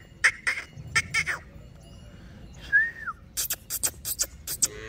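Scattered sharp clicks, a few in the first second and a quicker run of them in the last second and a half, with one short falling chirp about three seconds in.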